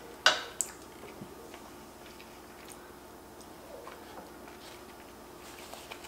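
Close-miked mouth sounds of someone chewing a mouthful of spaghetti carbonara with lips closed. There is a sharp click about a quarter second in, followed by a lighter one, then soft wet chewing noises. A brief paper-napkin rustle comes near the end.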